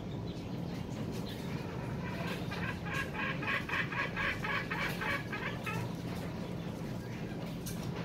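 Green junglefowl calling: a rapid string of short, shrill pulsed notes, about five a second, lasting some three seconds in the middle.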